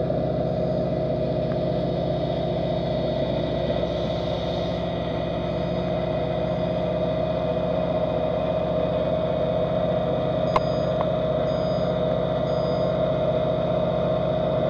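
Steady drone of engine or ship machinery heard underwater, a mix of fixed tones with the strongest one mid-pitched. A single sharp click comes about ten seconds in.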